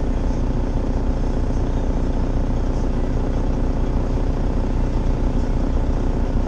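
Semi truck's diesel engine running steadily, heard from inside the cab as a constant low rumble.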